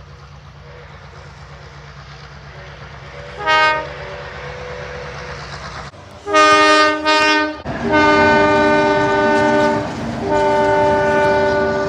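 Train's multi-note air horn sounding a chord: one short toot, then two quick short blasts, then two long blasts, over the steady low rumble of the train.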